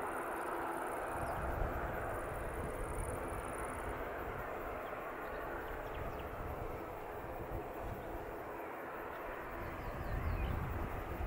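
Distant jet engine noise from an Airbus A321's CFM56 turbofans on final approach: a steady rumble that grows louder about ten seconds in as the airliner nears.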